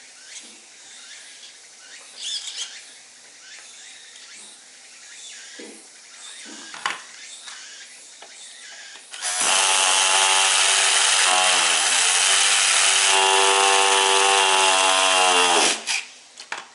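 Handheld electric starter cranking the glow-plug engine of an RC engine buggy, a loud steady whir that starts about nine seconds in, sags and recovers in pitch, and cuts off suddenly after about six seconds without the engine firing. The owner finds the glow plug is not being heated, so the engine will not start. Before the cranking, a few light knocks as the starter is set against the engine.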